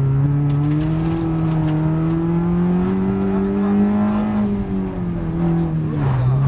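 Citroën Xsara VTS rally car's engine heard from inside the cabin, revs climbing steadily under acceleration for about four seconds, then falling off for a couple of seconds before rising again near the end.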